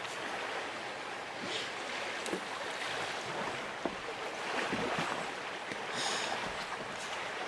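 Steady rush of a fast-flowing river's current, with some wind on the microphone and a single faint click about four seconds in.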